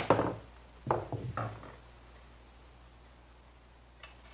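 Knocks and clacks of a .410 bolt-action shotgun being handled during reassembly, its wooden stock and steel receiver knocking together. There are two quick clusters in the first two seconds, then a single light click near the end.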